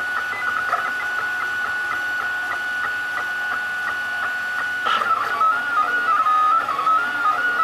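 Ultimaker 3D printer's stepper motors whining as the print head moves: one steady high tone for about five seconds, then a tone that jumps up and down in pitch as the head changes speed and direction.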